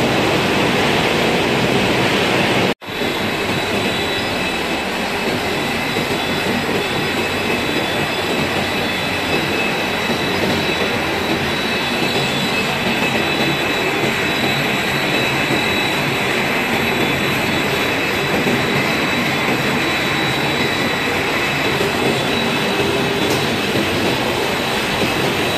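Steady machinery noise of a running snack-stick production line, a broad hum with a few steady high whines over it. The sound cuts out for an instant about three seconds in.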